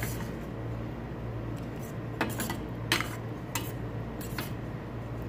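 Metal spoon stirring in a stainless steel pot of thick sauce, scraping and clinking against the pot's side in a string of sharp clinks, most of them between two and four and a half seconds in. A steady low hum runs underneath.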